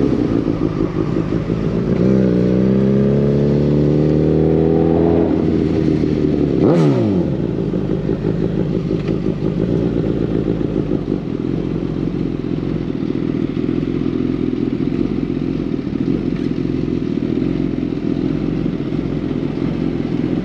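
Suzuki GSX-S1000's inline-four engine and exhaust on the move. The revs fall, then climb for about three seconds, sweep sharply down about seven seconds in, and then hold steady.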